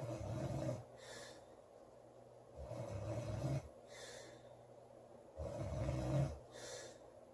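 A girl snoring loudly: three long, low snores about every two and a half to three seconds, each followed by a brief, fainter, hissy breath.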